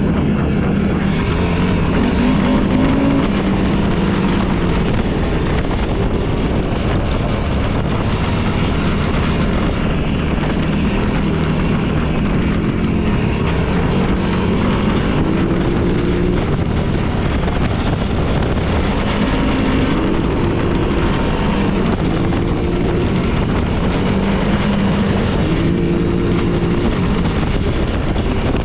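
Off-road vehicle engine running hard on a trail ride, its pitch rising again and again as it revs up, over steady wind and trail noise.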